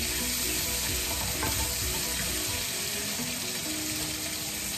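Chicken pieces sizzling in ghee in an aluminium karahi while being stirred with a wooden spatula, a steady frying hiss with light scraping against the pan as the chicken is browned.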